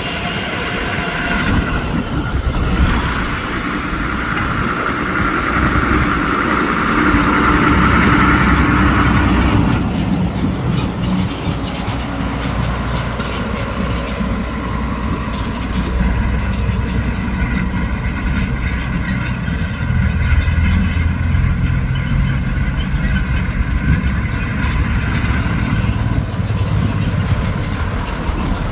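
Airbus A320 jet engines running during takeoff, a steady loud noise with a high whine through the first ten seconds or so, then a deeper low rumble.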